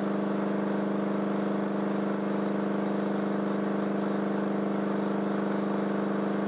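Crossfire C3 12-inch subwoofer driven by a 45 Hz test tone. It makes a steady, buzzy low hum with many overtones while its air pressure drives a second subwoofer as a generator, powering a small AC motor.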